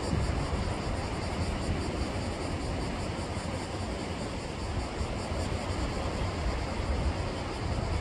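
Seashore ambience: a steady wash of sea waves, with wind rumbling unevenly on the microphone.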